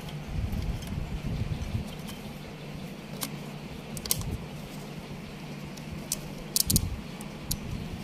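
Handling noise: small clicks and clinks as hands work loose wires and a clamp meter around copper refrigerator tubing, over a steady low hum.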